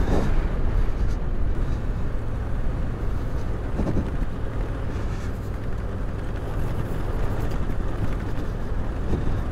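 Yamaha Ténéré 700 adventure motorcycle riding along a gravel desert track, its parallel-twin engine running steadily under a constant low rumble.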